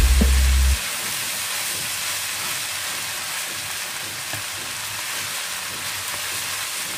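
Fried rice sizzling steadily in a nonstick frying pan while cooked basmati rice is stirred and tossed with a wooden spatula. Background music cuts off within the first second, leaving the sizzle alone.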